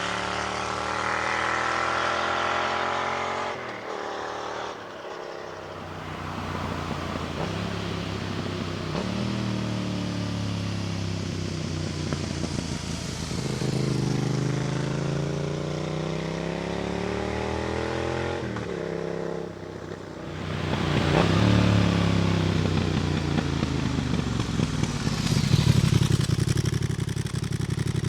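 2024 Yamaha XSR 700's parallel-twin engine running through a Roadsitalia Thunder exhaust with its dB killer fitted. The engine note rises and falls several times, with a few abrupt drops in pitch, and is loudest in the last third.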